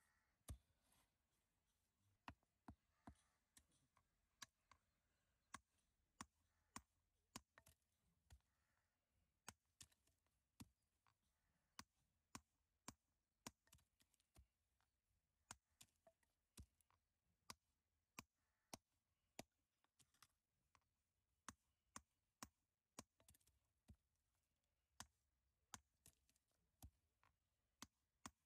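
Faint, sharp metallic taps of a small wooden-handled hammer striking a steel chisel held against a block of Sadarahalli white granite, irregular at about one to two strikes a second, as the stone is split and dressed into cladding pieces.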